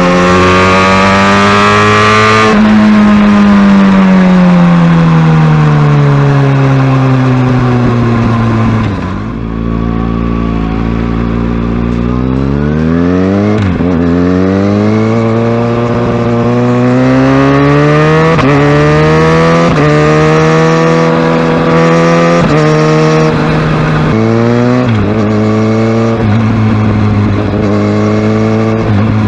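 Kawasaki Ninja ZX-6R's inline-four engine on the move. It revs up briefly, then winds down as the bike slows and drops toward idle about nine seconds in. From about twelve seconds it accelerates again, its pitch climbing in repeated runs, each cut by a sudden drop at a gear change.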